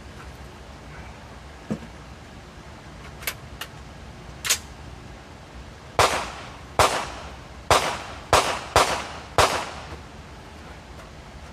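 Six gunshots in quick succession, roughly one every half second to second, each with a short echoing tail. A few fainter sharp cracks come in the seconds before them.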